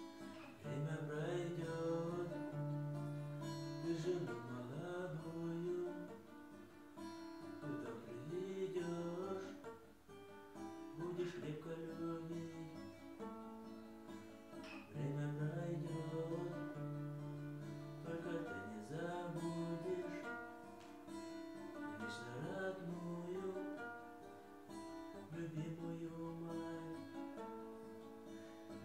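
Acoustic guitar playing, picked notes over repeated low bass notes.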